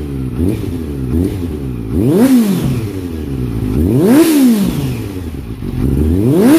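2014 Honda CBR650F's inline-four engine, breathing through a Yoshimura slip-on silencer on the stock header, being revved while parked: two short blips, then three big revs that each climb and fall back toward idle, about two seconds apart.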